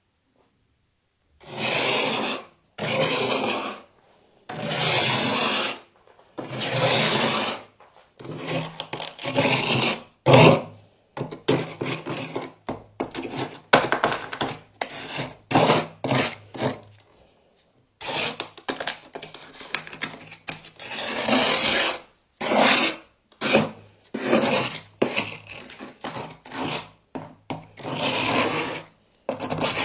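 Frost being scraped with a rasping sound, in repeated strokes: several long, even scrapes of about a second each, then quicker, shorter ones from about eight seconds in.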